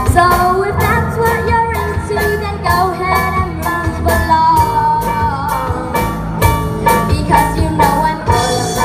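Young rock band playing a pop song, a girl singing the lead melody over drums, bass and guitars, with a regular drum beat.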